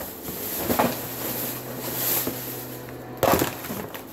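Cardboard boxes of frozen fish fillets being handled and set down on a counter: light knocks and rustles, the loudest knock about three seconds in, over a low steady hum.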